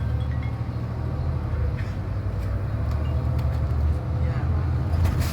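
Steady low engine rumble of street traffic, with a few faint clicks.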